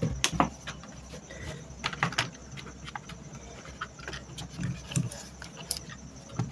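Scattered small clicks and taps, irregular and a dozen or so in number: hands handling wires and tools.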